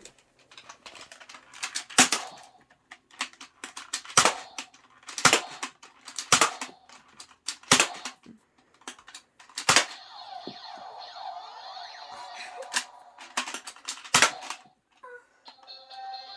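Nerf foam-dart blaster being fired repeatedly at an electronic scoring target: a run of sharp clacks and clicks, the loudest coming about every one to two seconds, with a steady electronic tone sounding between shots around the middle.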